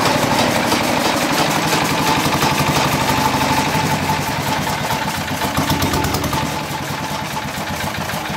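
Single-cylinder diesel engine running at a steady, rapid firing beat as it belt-drives a chaff cutter, with the cutter's flywheel and blades chopping green fodder. The sound eases off gradually over the last few seconds.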